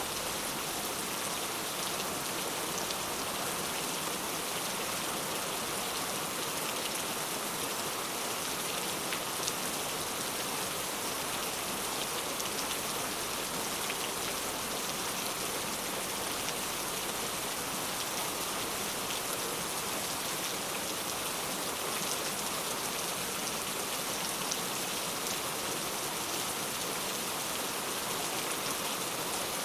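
Heavy rain falling steadily, a dense even hiss with scattered individual drop ticks.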